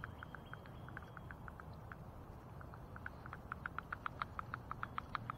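Baitcasting reel's drag clicking as a big flathead catfish pulls line off against a light drag. Sparse, irregular clicks give way about halfway through to a faster, louder, steady run of about seven clicks a second.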